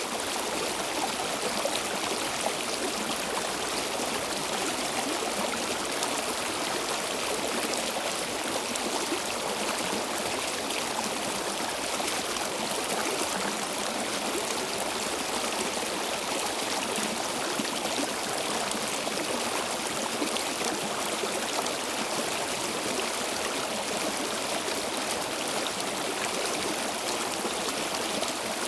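Stream water flowing steadily over rocks, a constant rushing with fine gurgling and trickling.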